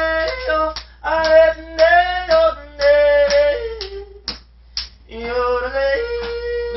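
A man yodeling, his voice flipping abruptly between low chest notes and high falsetto notes in short sung phrases, with a brief break about four seconds in before the next phrase.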